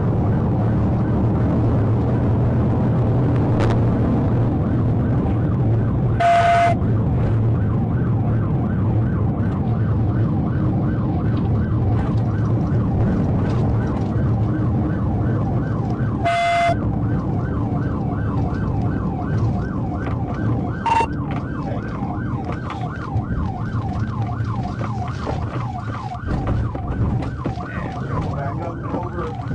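Police patrol car's siren sounding over heavy engine and road noise at high speed, cycling in a fast yelp from about halfway through. Two brief bursts with a beep cut in, and the engine and road noise ease off near the end as the car slows.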